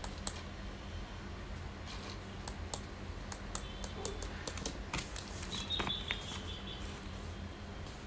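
Small plastic push-buttons on a 433 MHz key-fob remote clicking, pressed many times in quick, uneven succession while pairing it with a receiver module. A brief high chirp comes about six seconds in, over a steady low hum.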